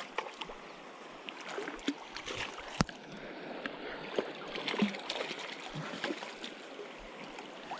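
Steady rush of creek water with intermittent splashing as a hooked cutthroat trout thrashes at the surface, over scattered small clicks; one sharp click stands out about three seconds in.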